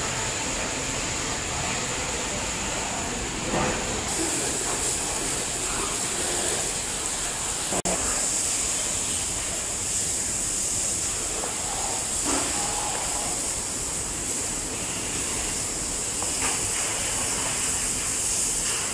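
Steady hissing background noise with a strong high-pitched band, which grows brighter in the top range about four seconds in and cuts out for an instant about eight seconds in.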